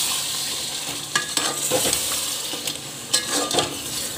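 Mutton and masala sizzling as they fry in desi ghee, with a metal spatula stirring and scraping around the pot, several sharp scrapes and knocks from about a second in. This is the bhuna stage, the spices being fried into the meat before water goes in.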